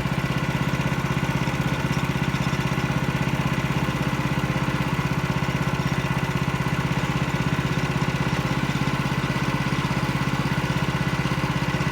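Portable sawmill's engine running steadily at an even pitch.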